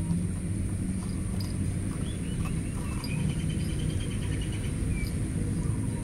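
Cat chewing wet cat food, faint scattered clicks, over a low steady outdoor rumble. A bird twitters in a short run of chirps and a trill from about two seconds in until near the end.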